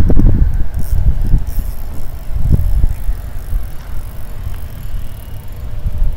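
Wind buffeting the microphone: an uneven low rumble that eases off after about three seconds.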